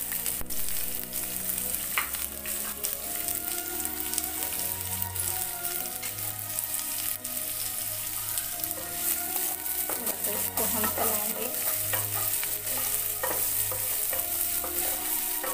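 Finely chopped onions sizzling in hot oil in a nonstick wok, with a wooden spatula scraping and stirring them through the pan now and then.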